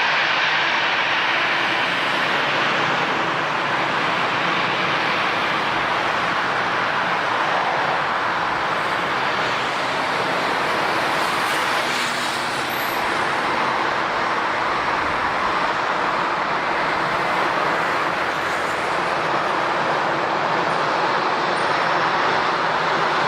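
Jet airliner engines running, a steady, even rush of noise that neither rises nor falls.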